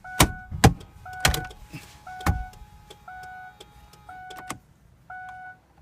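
Plastic dashboard trim on a Kia snapping into place with several sharp clicks and knocks, the loudest in the first couple of seconds. Under it, a car's warning chime beeps steadily about once a second.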